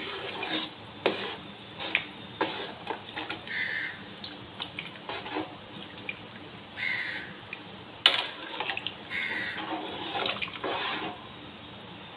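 A spoon stirring rice and water in a non-stick rice cooker pan: liquid sloshing, with repeated light knocks of the spoon against the pan and one sharper knock about eight seconds in.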